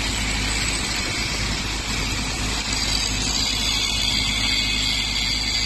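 Electric angle grinders cutting steel plate: a steady high whine over a low, even hum.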